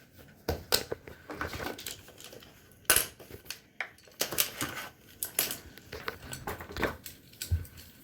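Small plastic fidget toys being handled and passed over: scattered irregular clicks, taps and light rattles, the sharpest about three seconds in.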